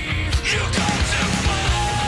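Rock music with a steady drum beat, playing as a break between segments.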